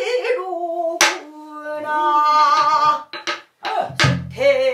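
Female pansori singer singing a long, wavering melismatic line with held notes and heavy vibrato, accompanied by a buk barrel drum: one sharp stroke about a second in and another, deeper stroke near the end.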